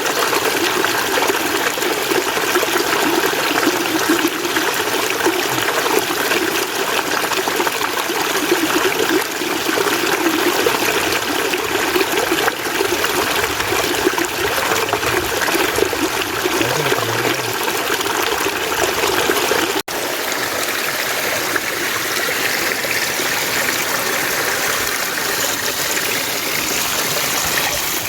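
Mountain stream flowing steadily. About twenty seconds in, a sudden cut switches to another stretch of water with a brighter, hissier sound.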